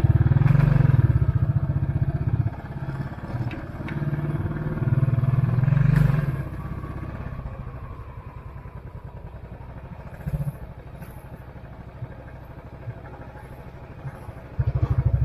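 Royal Enfield Classic 500's single-cylinder engine thumping under throttle as the bike is ridden. About six seconds in it eases off to a quieter, steady low beat, then comes a brief loud burst of throttle near the end.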